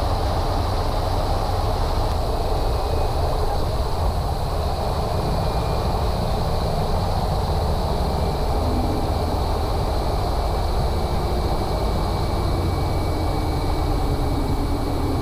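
Steady cabin drone of a Cessna 208 Caravan's PT6A turboprop engine and propeller, with rushing airflow. A faint thin whine joins about halfway through.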